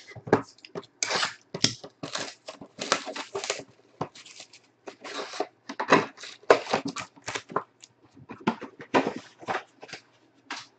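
A 2017-18 Panini Prizm basketball jumbo hobby box being torn open by hand and its foil-wrapped packs pulled out: a quick, irregular run of cardboard tearing and foil crinkling.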